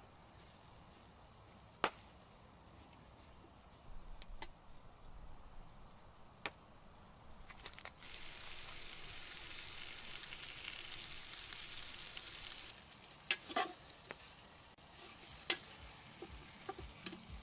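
Floured lamb pieces searing in hot fat in a pot over a campfire. The sizzling swells loud from about eight seconds in and eases back near thirteen seconds. A few sharp clicks and knocks come before and after it.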